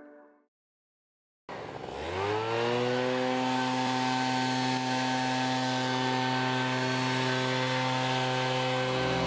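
Backpack leaf blower's engine spinning up, its pitch rising for about a second, then running steadily at full speed.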